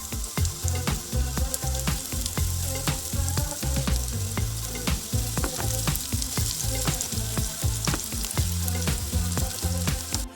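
Food sizzling as it fries in a pan, over background music with a steady bass beat. The sizzle starts and stops abruptly at edit cuts.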